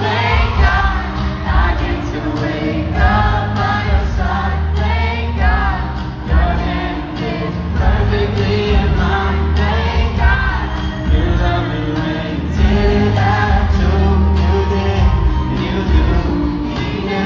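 Live country-pop duet sung over a full band with heavy, steady bass, heard from the stands of an arena.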